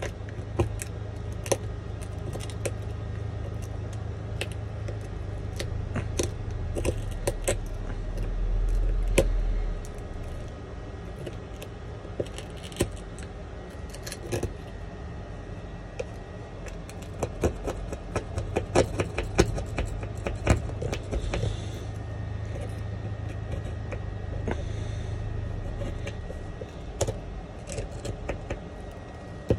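Thin metal pick chipping and prying laser-loosened back glass off an iPhone 11: irregular sharp ticks and scrapes of metal on glass, with small glass pieces cracking and clinking as they come away. A low hum runs underneath and grows louder for a couple of seconds about eight seconds in.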